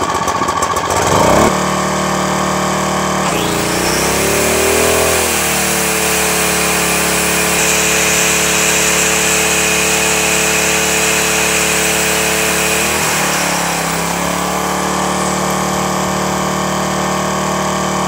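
Firman 1050 80cc generator's small four-stroke engine firing up, then running steadily. A few seconds in, an angle grinder plugged into it spins up with a rising whine and the engine's pitch shifts under the load before settling. Near two-thirds of the way through, the grinder stops and the engine note dips, then picks back up.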